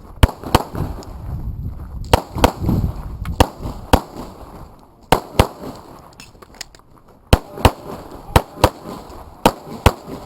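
Pistol shots fired in a practical pistol match stage, mostly in quick pairs or short strings with brief pauses between, the pauses where the shooter moves or changes targets.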